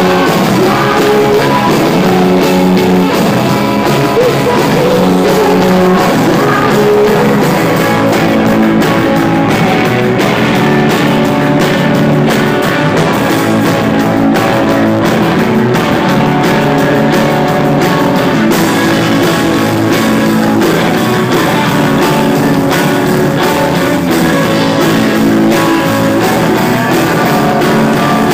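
Rock band playing live: electric guitars, bass guitar and a drum kit, with singing, loud and continuous, as heard through a phone's microphone in the crowd.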